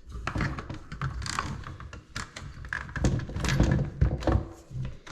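Repeated clicks, taps and knocks of hands handling a refrigerator's replacement control panel and its wiring and plugs.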